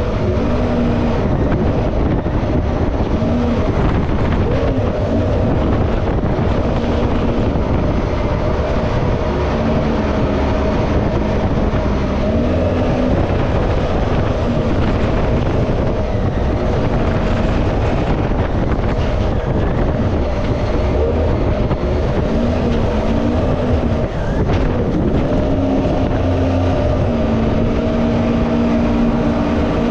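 Mini jet boat's Yamaha 1053cc four-stroke engine running under way, over a steady rush of water and wind. The engine note shifts up and down a little now and then, most plainly in the last few seconds.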